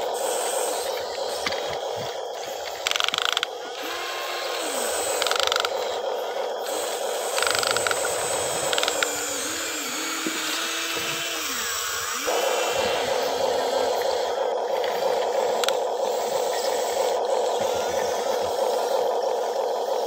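Small electric gear motors of radio-controlled model construction machines, an excavator and a bulldozer, whirring and grinding, with short whines that glide up and down in pitch as the motors start and stop. A few short, louder rattles break in during the first half.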